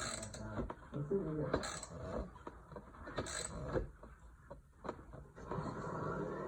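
Scattered metal clicks and knocks of a wrench tightening the bolts on a tiller during assembly.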